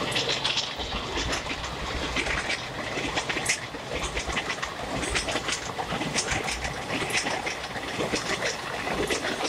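Passenger coaches of an express train running past at speed, wheels rattling and clicking irregularly over rail joints and points above a steady rolling rumble.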